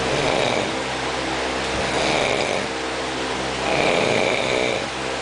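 A young man snoring in a steady rhythm, three rasping snores close to two seconds apart.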